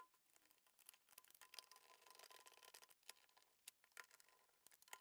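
Faint, irregular clicks and light scraping as a small screwdriver works screws into the plastic rear housing of an Audi instrument cluster during reassembly.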